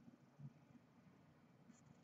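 Near silence: room tone, with one faint low knock about half a second in.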